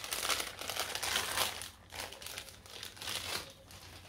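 Clear plastic bag crinkling as it is pulled open and handled, in irregular spells, loudest in the first second and a half.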